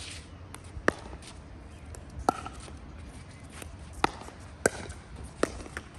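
Pickleball rally: sharp pops of paddles striking the hollow plastic ball, about five hits spaced unevenly, two of them close together near the end.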